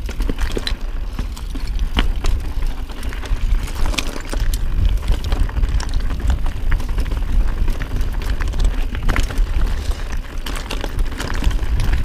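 Mountain bike rolling over loose, rocky singletrack: a steady low rumble on the camera microphone, with frequent short clicks and rattles from the tyres and bike on stones.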